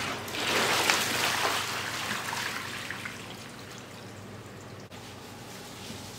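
Standing rainwater pouring out of a plastic sit-on-top kayak as it is flipped over, a splashing rush that fades away over about three seconds.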